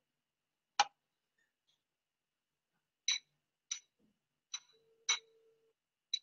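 Six sharp clicks: one louder click about a second in, then five lighter, irregular clicks between about three and six seconds. Among them a faint steady tone of about a second, a telephone ringback tone from the phone held to the ear while a call connects.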